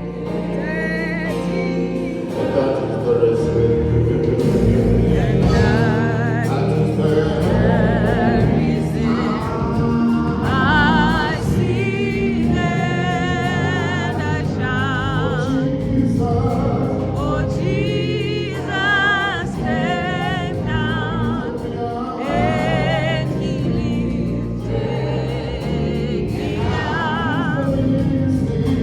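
Gospel music with a choir and lead vocals singing over sustained accompaniment.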